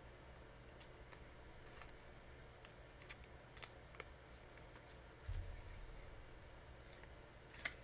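Faint scattered clicks and light handling noise of trading cards and their packs being handled, with a dull low thump about five seconds in.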